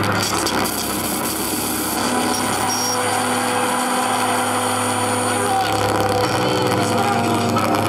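Live electroacoustic performance from a laptop: a loud, dense wash of electronic noise over a low hum. Steady tones come and go at different pitches, one higher pair starting about a third of the way in and another near the end.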